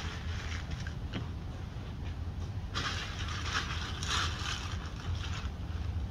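A person setting up a pop-up hub ice shelter: rustling of its fabric walls and crunching of dry leaves underfoot, in several bursts from about three to five and a half seconds in, over a steady low rumble.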